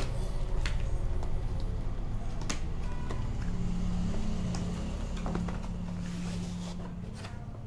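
Cardboard product box being opened and handled by hand: a handful of light clicks and scrapes over a steady low hum that fades toward the end.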